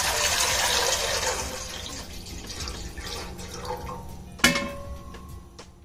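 Water poured in a steady stream into a cooking vessel to make sugar syrup. The pour thins out and stops about two seconds in. About four and a half seconds in there is one sharp clank with a short ring.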